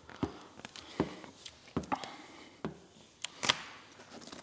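Vinyl wrap film being lifted and pressed by hand onto a car's door panel: irregular light clicks and taps, some with a soft thud, a few to the second.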